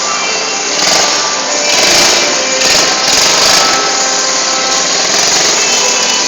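A small ATV running steadily, a dense, buzzing mechanical noise.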